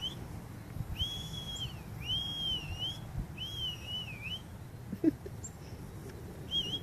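A person whistling to call puppies: a run of short, high whistles that bend up and down in pitch, about one a second, then a pause and one more short whistle near the end. A brief puppy yip sounds about five seconds in.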